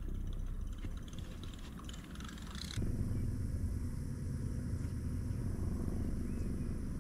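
Open-air ambience on a boat deck: a steady low rumble of wind on the microphone with light hiss. About three seconds in it changes abruptly and the rumble grows louder.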